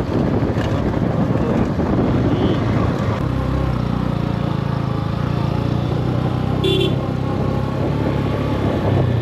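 Motorcycle engine running on a dirt track, with a rough rumble of wind and ground noise for the first few seconds, then a steadier engine note. A short high beep comes about two-thirds of the way through.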